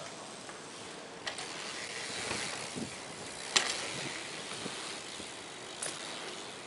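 BMX bike tyres rolling on concrete, growing louder as the bike nears, with a sharp clack of the bike about halfway through and lighter knocks about a second in and near the end.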